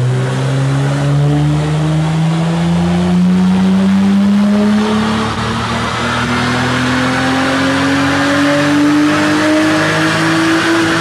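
Porsche Panamera E-Hybrid's 2.9-litre twin-turbo V6 through an Akrapovic exhaust, pulling under load on a chassis dyno. The engine note climbs slowly and steadily in pitch as the revs rise, loud and unbroken throughout.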